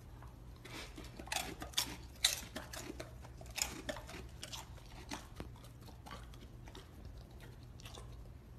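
Dog licking, with a run of short, wet smacking clicks that are loudest in the first half.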